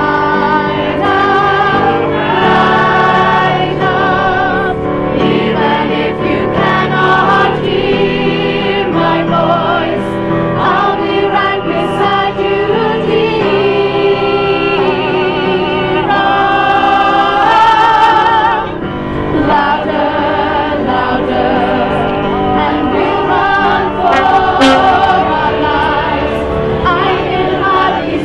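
A choir, mostly women's voices, singing a melody with long held notes that waver in pitch.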